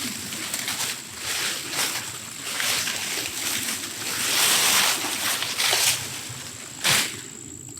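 A squash plant being pulled out, its large leaves and vines rustling and swishing through straw mulch in irregular bursts, loudest about halfway through, with a sharp crackle near the end.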